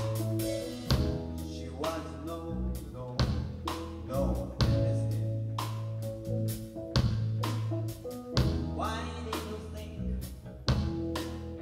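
Live band playing an instrumental passage: electric bass holding long low notes, a drum kit hitting accents, and keyboard chords and quick runs.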